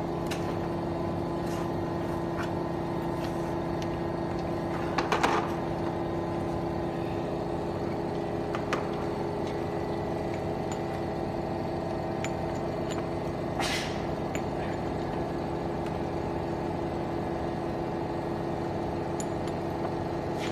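Steady machine hum with a low droning tone, over occasional clinks and taps of metal parts being handled and set into a steel fixture plate; a quick run of clinks comes about five seconds in and another near fourteen seconds.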